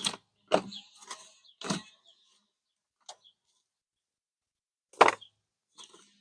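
Plastic plant pots and trays being handled and set down, giving a string of irregular knocks and rattles, with the loudest knock about five seconds in.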